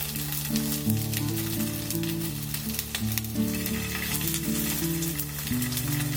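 Mushrooms and salmon frying in butter in a pan, sizzling with a fine, steady crackle. Soft background music with slow low notes plays underneath.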